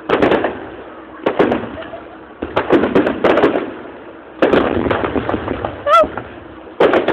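Fireworks going off: several sudden bangs, roughly a second apart, each fading away in a trailing rumble.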